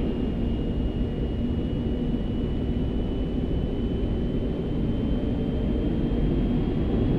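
Airbus A380's Rolls-Royce Trent 900 engines spooling up as the thrust is first advanced for takeoff, heard inside the cockpit: a steady rumble with a thin whine that slowly rises in pitch while the whole sound gradually grows louder.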